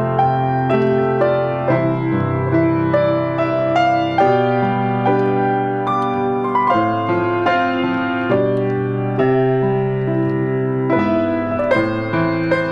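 Piano music: a slow melody of single notes over sustained chords, played continuously.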